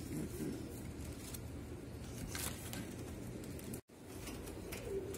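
Domestic pigeons cooing softly, with a few light clicks. The sound drops out for an instant just before four seconds in.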